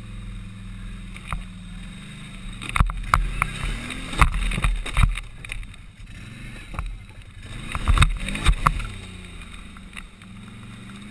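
Can-Am ATV engine running at low revs while the quad bumps and scrapes over logs and a scrapped car, with a cluster of loud knocks and bangs about three to five seconds in and again around eight seconds in. Near the end the engine revs rise and fall as it drives off.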